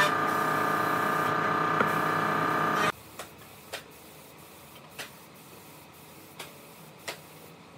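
A machine runs with a steady, many-toned hum and stops suddenly about three seconds in. About five light, scattered knocks follow.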